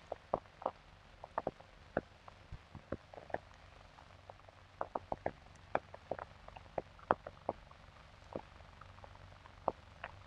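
Faint, irregular clicks and pops of old optical film-soundtrack crackle over a low steady hum.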